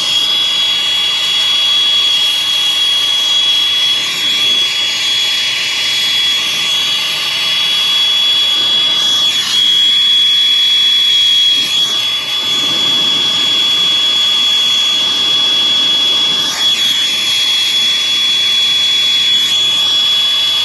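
Torch flame hissing steadily as it heats a copper refrigerant line joint for silver soldering, with a steady high whistle over it.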